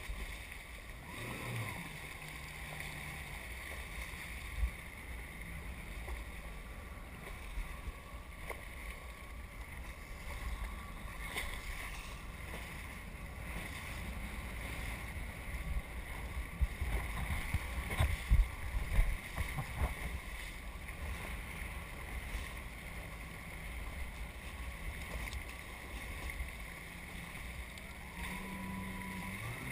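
Jet ski running over choppy sea: a steady engine drone with the hull thumping on the waves and spray splashing, and a cluster of heavier thumps about two-thirds of the way through.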